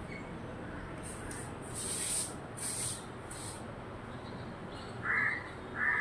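A parrot gives two short, harsh squawks near the end, a little under a second apart. Before them come several brief bursts of high, hissy rustling.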